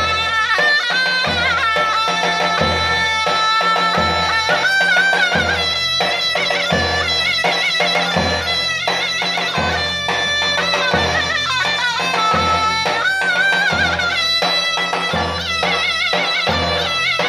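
Zurna, the Turkish double-reed shawm, playing a folk melody in a loud, reedy, nasal tone, with long held notes broken by quick trills and ornaments. A steady low beat sounds underneath.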